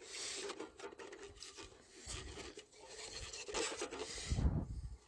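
Plastic and metal rubbing and scraping as a stuck stove part is worked out from inside a Jetboil cook cup, in irregular scrapes. A low thump near the end.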